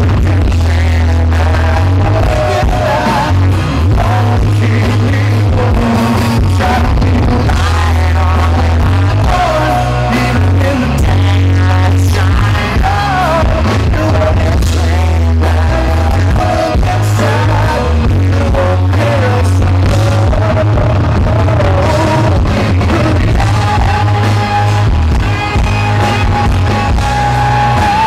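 Live rock band playing with a sung lead vocal over heavy, booming bass. The amplified sound is loud and distorted, recorded from within the crowd.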